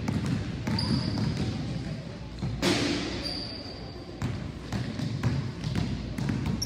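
A basketball dribbled hard and repeatedly on a hardwood gym floor, the player's sneakers squeaking a few times as he cuts around cones.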